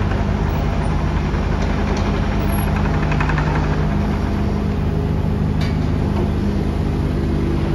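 Kubota U27-4 mini excavator's three-cylinder diesel engine running steadily as the machine drives forward and turns on its tracks. A single brief knock comes about five and a half seconds in.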